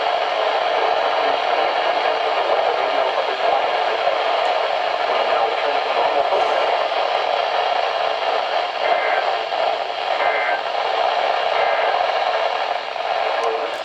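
Steady static hiss from a NOAA Weather Radio receiver tuned to a weak signal: an even rushing noise with no clear voice or tone, and faint brief traces of the broadcast showing through in the second half.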